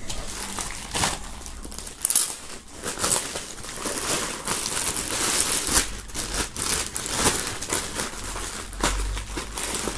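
Thin clear plastic film crinkling and crackling as it is pulled and unwrapped from a bag by hand.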